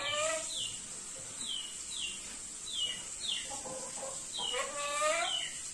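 Chicks peeping: a run of short, high, falling peeps, about two a second. A longer, lower call comes about three-quarters of the way through.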